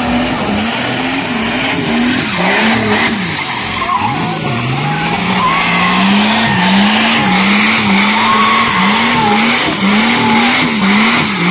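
Chevrolet Omega drift car's engine revving hard in quick repeated rises and falls while its rear tyres spin and skid on wet asphalt, with a steady hiss and squeal from the tyres.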